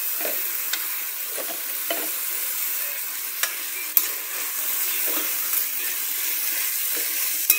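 Pitos (green flower buds) sizzling in hot oil with onion and tomato while being stirred in the pan, with small clicks from the stirring and two sharper knocks, about four seconds in and near the end.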